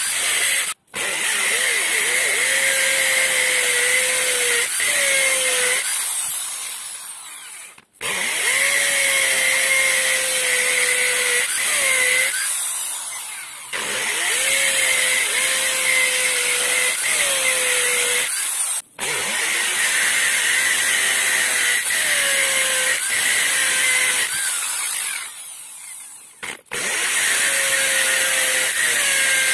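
Maktec MT814 corded hammer drill boring into hard concrete with a 10 mm carbide-tipped masonry bit: a steady grinding rattle with a whining tone. It stops a few times between holes, winding down and then starting up again.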